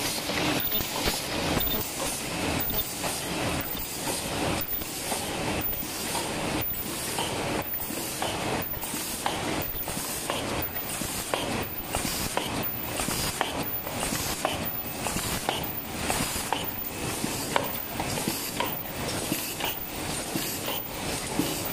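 Paper cup forming machine and double-wall cup sleeve machine running in production: a steady mechanical clatter with a regular beat of about three strokes every two seconds.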